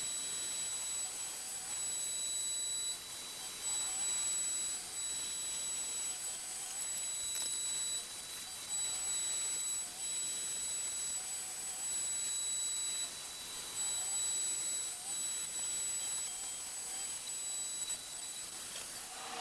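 CNC router spindle running and cutting acrylic, a steady high-pitched whine over a hiss, the whine dropping out briefly every few seconds.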